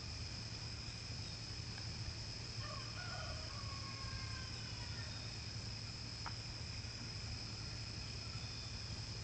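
Steady high-pitched chorus of night insects, crickets, over a low steady hum. A faint drawn-out call about three seconds in, and a single click a little after six seconds.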